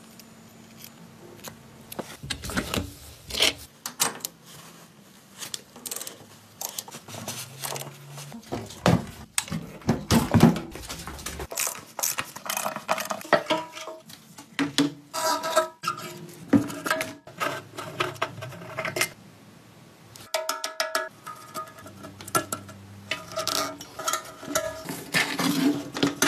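Irregular metallic clinks, knocks and scrapes of tools and old rusty Ural motorcycle parts being handled and taken apart, closely spaced and uneven.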